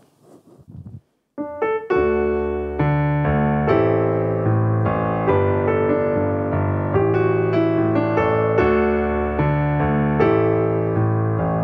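A piano starts with a few single notes, then plays steady full chords, opening the service's closing worship song.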